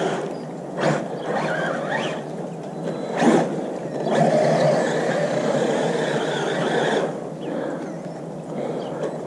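Traxxas Maxx RC monster truck's electric motor and drivetrain whining in bursts of throttle, the pitch rising and falling, while its paddle tyres churn through snow. The longest run comes from about four to seven seconds in.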